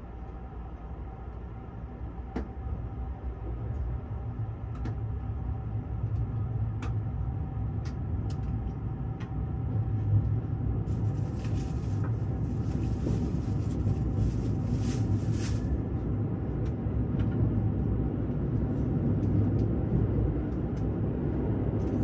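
Inside a JR West Thunderbird limited express electric train pulling out of the station: a low running rumble that grows steadily louder as the train picks up speed, with occasional light clicks. A spell of hiss comes in about halfway through and fades a few seconds later.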